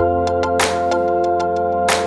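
Background music: sustained organ-like keyboard chords with light percussion ticks and a beat roughly every 1.3 seconds.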